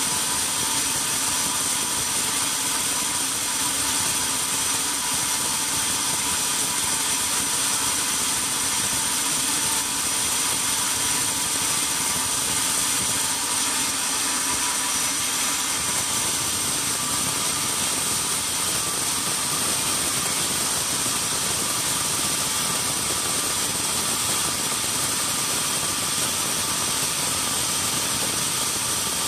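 Band sawmill running steadily: motor and band blade making an even machine noise with a constant high whine.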